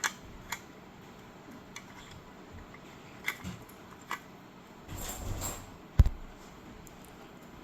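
Light clicks and taps of small parts being handled, a short scrape about five seconds in and a sharp knock about six seconds in, as a guitar pedal's footswitch and LED are fitted up into the holes of the pedal enclosure.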